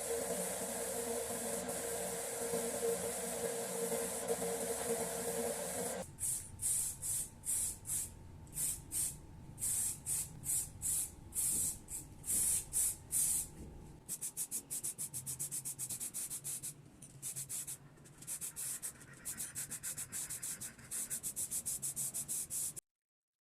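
Steady hissing noise for about six seconds. Then sandpaper rubbed by hand in regular back-and-forth strokes, about two a second, quickening to three or four a second later. The sound cuts off abruptly near the end.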